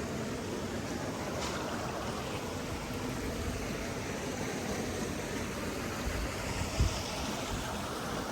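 Steady rushing of running water, like a stream, with a brief low thump about seven seconds in.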